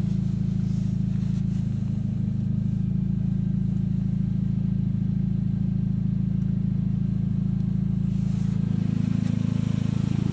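Dodge Caliber engine idling steadily.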